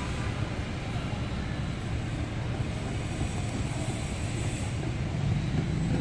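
Steady low rumble of road traffic, without distinct individual events.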